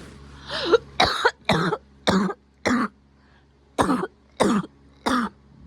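A coughing fit: after a short throaty sound, four sharp coughs about half a second apart, a brief pause, then three more.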